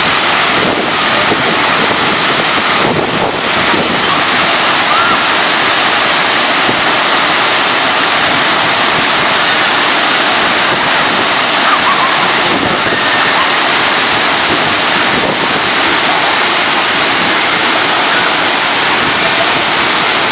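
Waterfall: a loud, steady wash of falling water.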